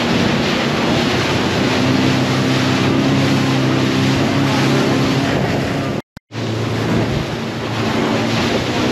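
Motorboat running at speed: a steady engine hum under the rush of water and spray off the hull, with wind buffeting the microphone. The sound cuts out completely for a moment about six seconds in, then resumes.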